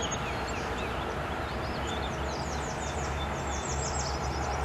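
Steady rushing noise of flowing river water, with small birds singing over it: scattered high chirps, then a rapid run of short falling notes in the second half.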